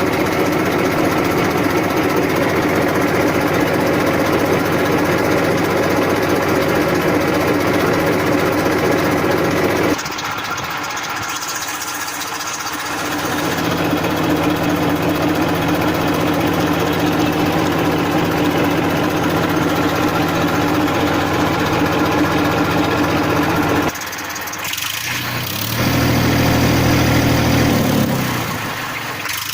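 Massey Ferguson 1035 DI tractor's three-cylinder diesel engine idling with a steady hum. The sound shifts abruptly about ten seconds in and again a few seconds before the end, where a lower, deeper hum takes over.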